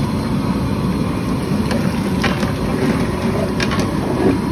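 A long steel ladle stirring in a large aluminium pot of pav bhaji, giving a few short metallic knocks, over a steady low rumble.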